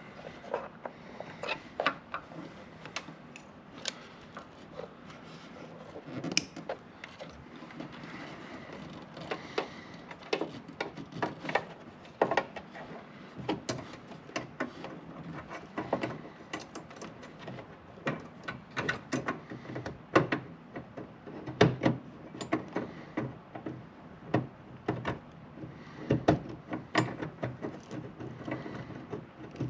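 Irregular sharp plastic clicks, taps and rattles of hands working a headlight bulb socket and its wiring connector behind the headlight housing.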